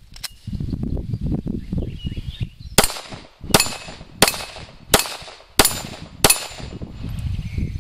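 Six pistol shots from a Glock firing 10X remanufactured ammunition at a steel target. They start about three seconds in and come evenly, roughly one every 0.7 seconds, each with a short echoing tail.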